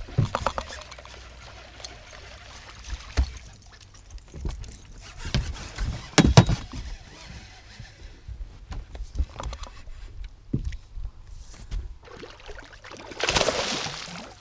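Scattered knocks and thumps inside the boat, the loudest about halfway through. Near the end comes a loud burst of splashing as a muskie thrashes at the surface beside the boat.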